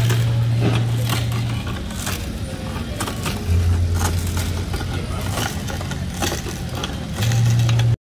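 Clicks and scrapes of a hand tool prying at shattered tempered glass on a fridge door panel, over a steady low hum that drops in pitch for about a second midway and rises near the end.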